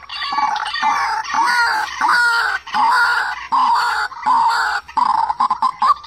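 Juvenile white-breasted waterhen calling: a steady series of short pitched calls, about eight in six seconds, each bending in pitch.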